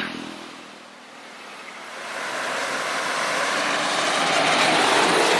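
Road and wind noise of a moving car: a rushing noise that dips about a second in, then grows steadily louder.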